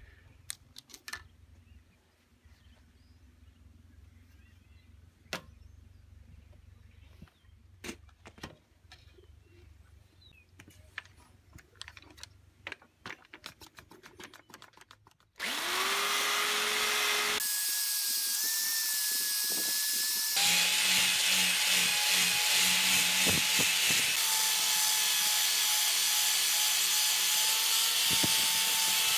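Scattered clicks and knocks of handling, then about halfway through a corded electric drill with a wire wheel brush starts up with a rising whine and runs steadily, scrubbing the face of a weathered pallet board.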